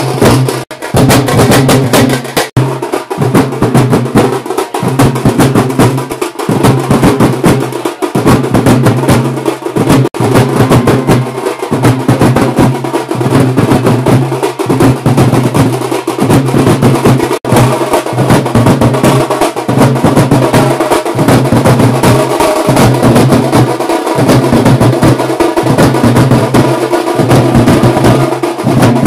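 A band of drummers beating large drums with sticks in a loud, continuous, fast rhythm with a pounding low beat.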